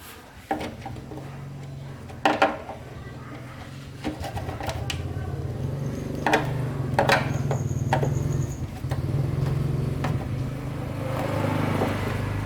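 A small motor running steadily, with several sharp clicks and knocks over it.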